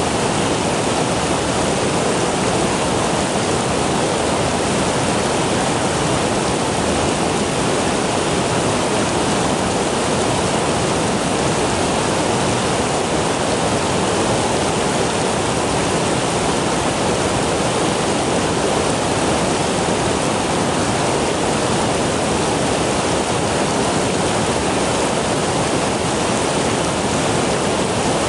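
Flowing stream water rushing steadily, an even hiss with no breaks or change in level.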